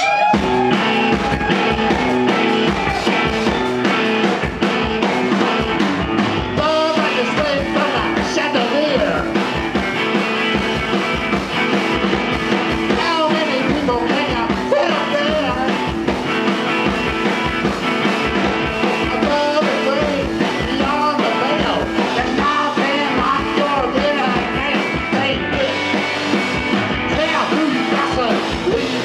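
Rock band playing live, with a steady drumbeat and some singing.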